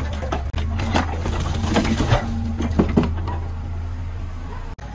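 Soil and broken brick rubble clattering into a dump truck's bed as an excavator bucket unloads, with a string of sharp knocks through the first three seconds. A diesel engine hums steadily underneath.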